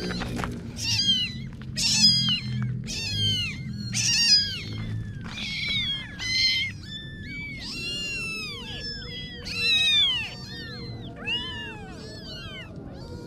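Kittens mewing over and over, many short high-pitched arching calls overlapping one another, thinning out near the end.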